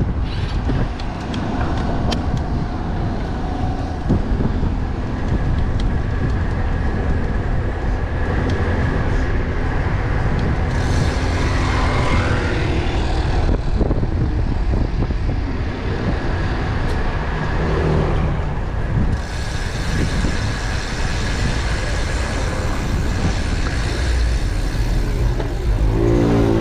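City street traffic, cars and trucks passing, heard from a moving bicycle, with a steady low wind rumble on the microphone. A pitched vehicle sound glides past about halfway through, and another passes near the end.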